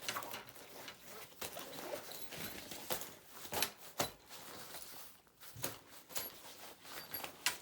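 Fabric laptop backpack being handled, with zippers pulled on its pockets and the material rustling, and several short sharp clicks or taps.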